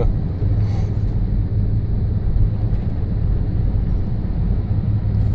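Four-wheel-drive truck with big knobby tires driving on a snow-covered road, heard from inside the cab: a steady low rumble of engine and tyres on snow. A short higher swish comes a little under a second in.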